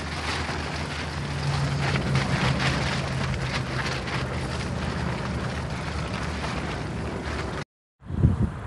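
Wind buffeting a tent, heard from inside: the tent fabric and the loose tarp over its rain fly flapping and rattling without a break, over a steady low drone. It cuts off suddenly near the end, followed by wind gusting on the microphone.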